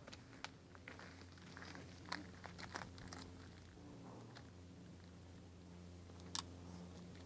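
Quiet ambience: a faint low steady hum with scattered sharp clicks and crackles. The clicks are loudest about two seconds in and again near the end.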